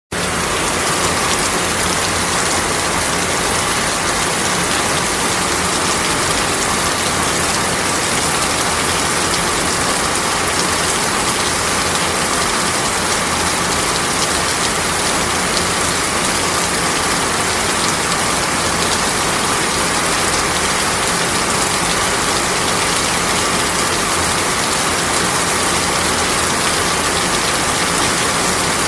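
Heavy rain falling steadily on a surface, a dense, even hiss of drops.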